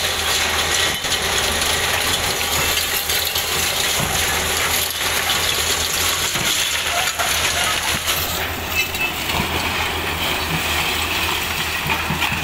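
Caterpillar 323D2L and 320CL hydraulic excavators running while their buckets pull a damaged building apart, with concrete and rubble crashing and clattering down throughout.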